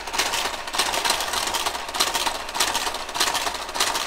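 Brother KG-93 garter carriage driving itself along a KH-965 knitting machine's needle bed while knitting ribbing, making a steady rhythmic mechanical clicking. A stronger click comes a little more than every half second as it works the needles.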